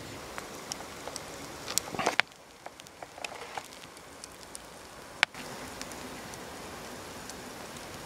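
Small wood campfire crackling, with irregular ticks and pops and a couple of sharp snaps, about two seconds in and again just after five seconds.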